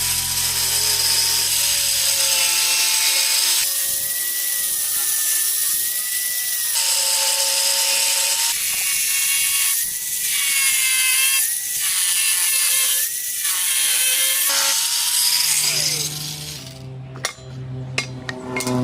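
A small high-speed power tool runs on PVC parts, its whine dipping and rising as the load changes. It stops about three-quarters of the way through, followed by a few sharp clicks.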